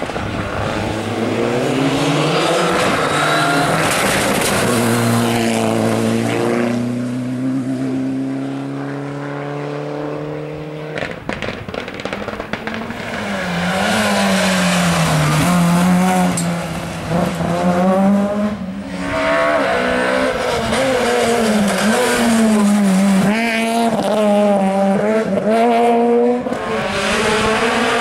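Rally car engines at full throttle on a stage, the engine note climbing and dropping sharply with each gear change and lift. The sound jumps abruptly about eleven seconds in as another car takes over.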